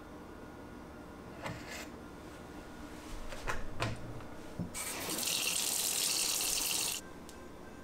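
A few clicks and knocks of a plastic jug cap being handled, then a kitchen tap runs a thin stream into a sink for about two seconds before it is shut off suddenly.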